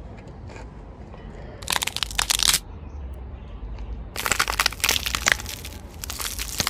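Objects crunching and cracking as a car tyre rolls over them. There is a short burst of crackling about two seconds in, then a longer run of crunching and snapping from about four seconds in, over a steady low rumble.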